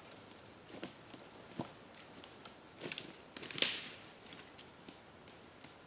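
Footsteps walking over a forest floor of dry leaves, twigs and needles, crunching and crackling at a steady walking pace. One louder crack comes about three and a half seconds in.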